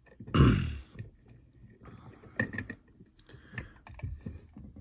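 Light clicks and taps of lock picks and a tension wrench working the pins of a pin-tumbler challenge lock. About half a second in there is one short, louder sound that falls in pitch.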